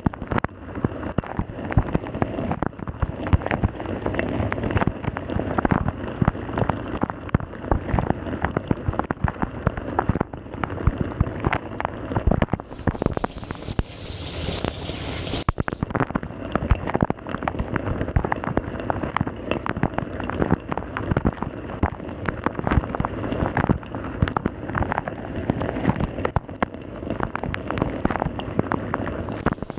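Wash water spraying and splashing inside a running Samsung dishwasher, with dense irregular patters of drops striking close by. From about twelve to fifteen seconds in, the splashing gives way to a smoother, higher hiss, then the patter returns.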